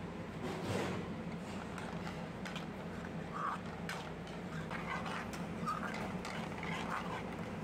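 Metal ladle stirring thick gravy with chicken pieces in an aluminium pan, scraping and clicking against the pan over and over, with a few short squeaky scrapes, over a steady low hum.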